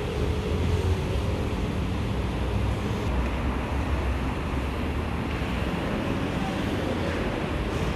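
Steady outdoor background noise with a strong low rumble and an even hiss, with no distinct events.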